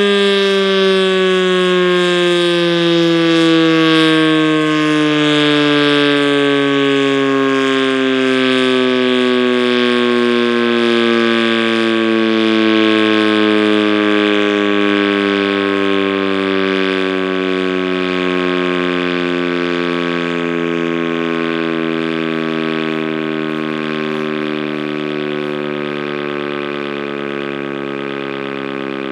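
ASC OM-117 outdoor warning siren winding down: a loud, rich tone whose pitch slides slowly and steadily downward while it gradually gets quieter as the rotor coasts to a stop.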